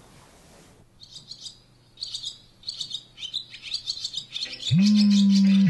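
Small birds chirping and tweeting in many short high calls. Near the end a loud steady electric buzz starts, rising quickly in pitch as it begins, and lasts about a second.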